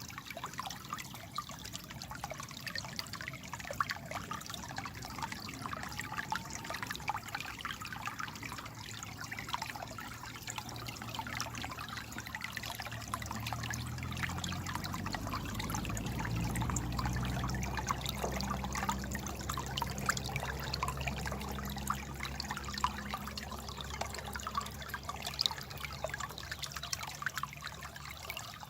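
Babbling water, a steady trickle of many small splashes. From about halfway a low hum swells up, then fades again.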